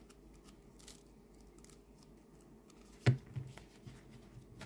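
Tarot cards being handled and gently pried apart where they are stuck together: faint papery rustles and light ticks, with a sharp tap about three seconds in followed by a few softer clicks.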